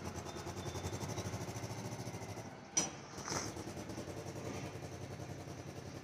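An engine running steadily, with a sharp click about three seconds in.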